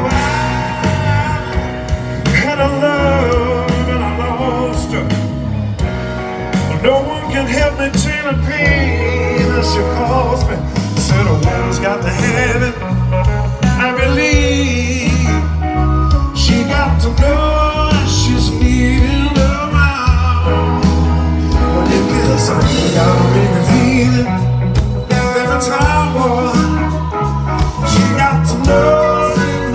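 Live blues-rock band playing at full volume: electric guitars, bass and drums, with singing.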